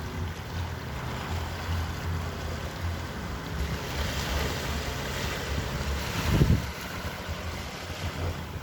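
Sea waves washing, with wind rumbling on the microphone. A louder wash swells up about four seconds in and peaks in a short low thump a little after six seconds.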